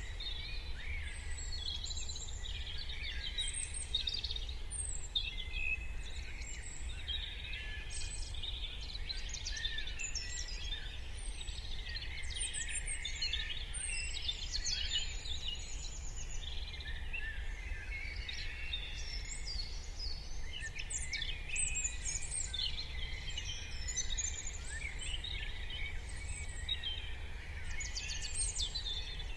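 Morning chorus of many songbirds singing and calling over one another, a dense tangle of short chirps and trills, over a steady low rumble.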